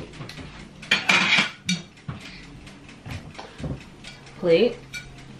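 Dinner plates clattering and knocking as a plate is taken out and handled, in a few sudden bursts about one to two seconds in, with smaller clinks after. A brief vocal sound comes about four and a half seconds in.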